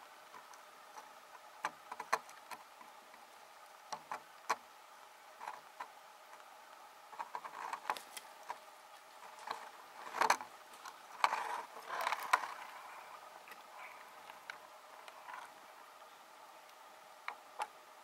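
Light, irregular snaps and knocks of an elk's hooves stepping through twigs and deadfall on the forest floor at close range, thickening into a quicker run of steps about ten to twelve seconds in.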